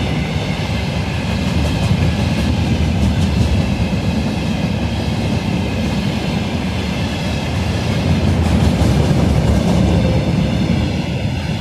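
Freight train hauled by a 3ES4K 'Donchak' electric locomotive rolling past close by: a steady, loud rumble of wheels on rail with light clacking over the rail joints.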